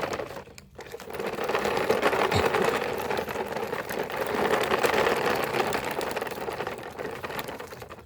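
Electric motor and plastic gears of a toy excavator whirring steadily as it runs, with a fast ticking rattle, starting about a second in and fading near the end.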